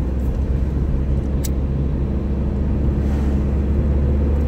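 Steady low hum of a car's idling engine heard inside the cabin, with a single sharp click about a second and a half in.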